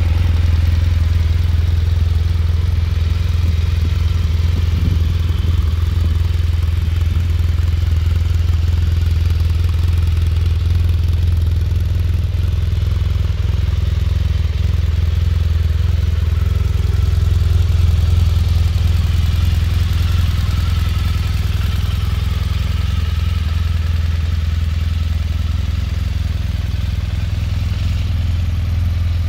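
BMW R1200R's boxer-twin engine idling steadily, a constant low hum.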